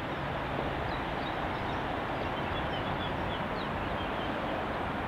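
Steady hum of motorway traffic from an overhead viaduct, with small birds chirping faintly over it in the first half.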